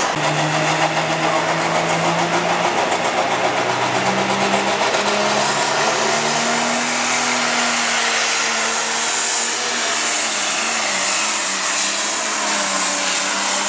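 Light pro stock pulling tractor's turbocharged diesel engine running at full load as it drags the weight sled. The engine note climbs in pitch a few seconds in, then holds high.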